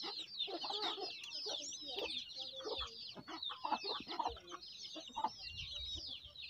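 A brood of ducklings peeping all together: a dense, overlapping run of high, falling cheeps, with a hen clucking low now and then among them.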